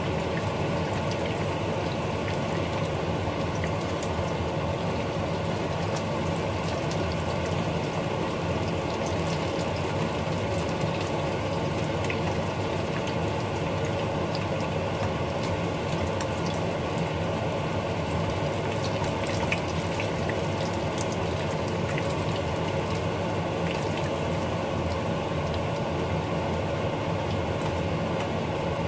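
Chicken fritters deep-frying in hot oil in a wok, sizzling and bubbling steadily with small scattered crackles, the fritters already browned.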